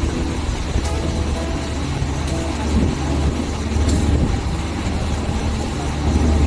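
CC 201 diesel-electric locomotive idling with a steady low rumble. A few faint sharp ticks sound over it.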